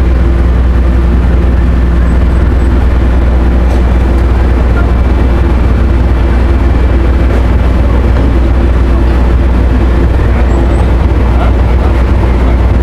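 Ro-ro car ferry's engines running, a loud steady low drone with a constant hum over it.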